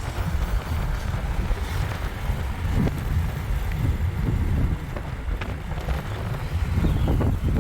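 Car driving along a road: a steady low rumble of road and engine noise, with wind buffeting the microphone and a few light knocks.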